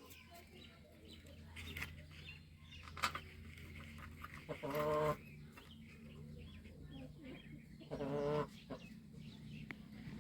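Farm animals calling: two drawn-out calls of about half a second each, about five and eight seconds in, among fainter clucking.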